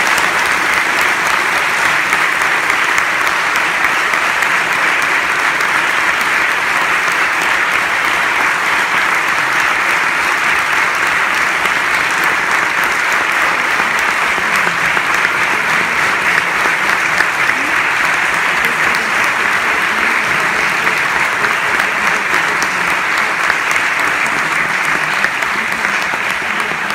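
Lecture-hall audience applauding steadily for about half a minute at the end of a talk.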